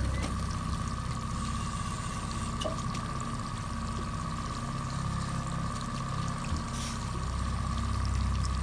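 Boat's engine idling with water sloshing against the hull, under a steady high whine.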